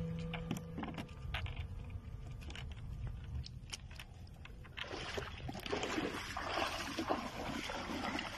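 Scattered clicks and knocks from a wire fish trap being shaken out and knocked against the boat's side, then from about five seconds in, water splashing around a man's legs as he wades through shallow water.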